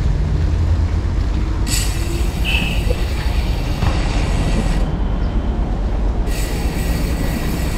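Close-by truck traffic in a jam: a steady low rumble of heavy diesel engines, with two long high-pitched hisses, one starting about two seconds in and the other near the end.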